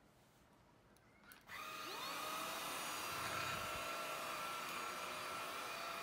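Cuckoo InsPure PowerClone cordless stick vacuum starts about a second and a half in, then runs steadily with a high whine.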